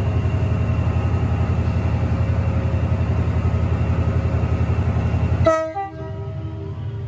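Class 68 diesel locomotive's engine running with a steady low throb, then a short horn blast about five and a half seconds in, after which the engine sound drops away to a quieter rumble.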